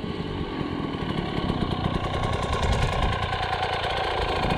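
Two-stroke engine of a Husqvarna TE300i enduro dirt bike running at low revs, a little louder from about two seconds in.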